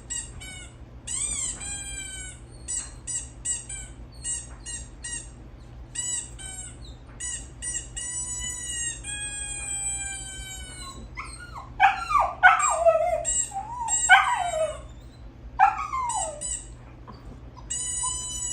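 Runs of short, high-pitched squeaks and some long, slowly falling squeals. From about twelve seconds in come louder puppy whines and little howls that waver and drop in pitch, the pups answering the squeaky sounds.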